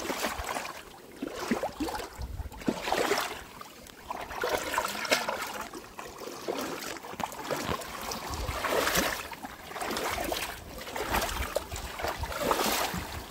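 Water sloshing and splashing around legs as several people wade through a thigh-deep river, swelling and fading with each stride.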